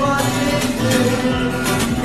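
Background music with a steady beat: the backing of a love song between sung lines.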